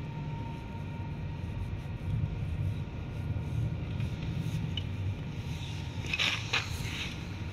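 Hand tools and scooter parts being handled on a cardboard sheet: a short cluster of scraping and rustling about six seconds in, over a steady low hum.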